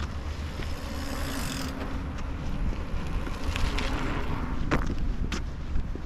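A bicycle rolling past on a paved path, its noise swelling about four seconds in as it goes by, over a steady low wind rumble on the microphone. Two sharp clicks near the end.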